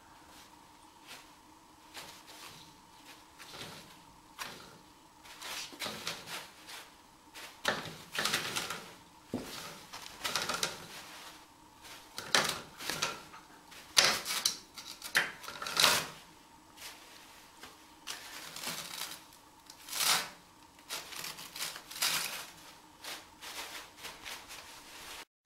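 Toilet paper rustling and crinkling in irregular bursts as a cat paws at the heap and pulls on the roll.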